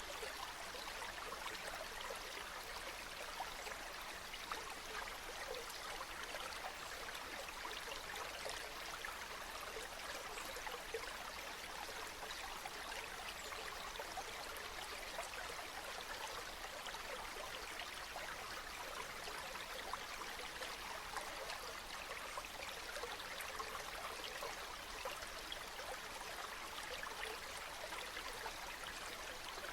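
Small brook running and babbling over stones, a steady burble flecked with small splashes.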